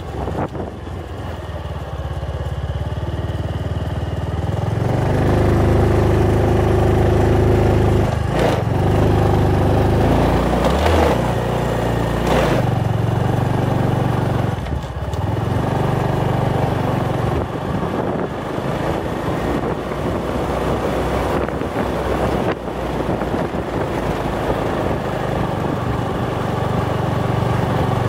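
Honda motorcycle engine running under way, heard from the rider's seat. It grows louder and steadier about five seconds in, then rises and falls with the throttle, with brief dips a few times.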